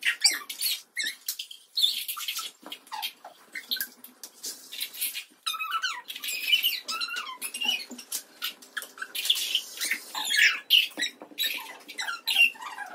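Hamleys talking plush unicorn repeating speech back in a sped-up, high-pitched squeaky voice, in many short bursts.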